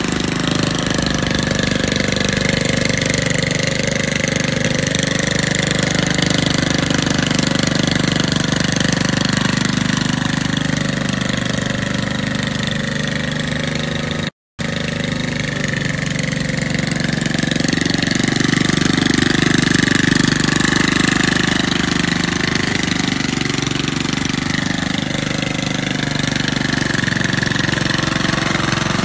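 Walk-behind petrol lawn mower's small single-cylinder engine running steadily while the mower is pushed across grass. The sound cuts out for a moment about halfway, then carries on.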